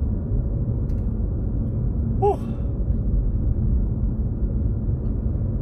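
Steady low rumble of a car's engine and tyres heard from inside the cabin while it drives slowly, with a short human vocal sound a little over two seconds in.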